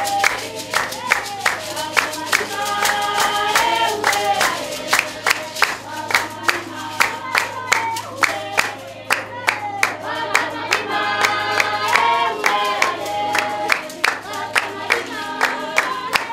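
Group singing of a San (Basarwa) dance song over a sharp, steady beat of hand claps and the dancers' ankle rattles, about three beats a second.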